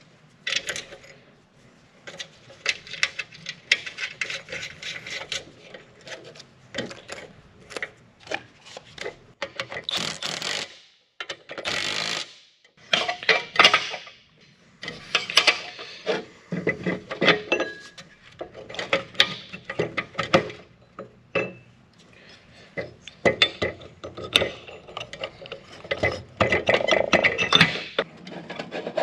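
Hand tools and steel seed-meter parts clinking, knocking and scraping as the meter box is reassembled: a string of short metallic clicks, with a few louder rubbing bursts.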